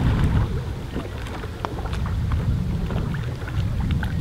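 Wind blowing across the microphone as a steady low rumble, with faint scattered ticks of water lapping.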